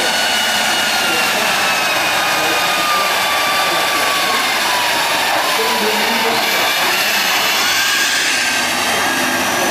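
Tatra 813 8x8 truck engine running loud and steady as the truck works over a steep dirt slope, with a high whine that drifts slowly down in pitch and then back up.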